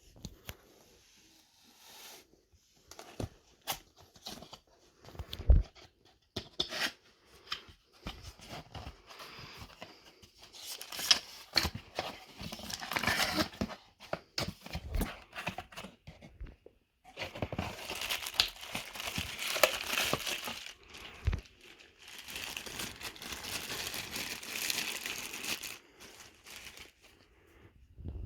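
Packaging being opened by hand: wrapping crinkling and tearing in two long stretches of rustling, with scattered knocks and taps of the box before them.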